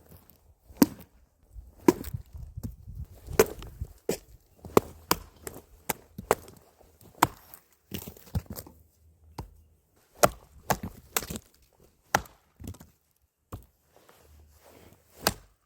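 Odenwolf Catcher fixed-blade survival knife chopping and slashing into a hollowed-out jack-o'-lantern pumpkin, about twenty sharp, irregularly spaced strikes of the blade through the pumpkin shell.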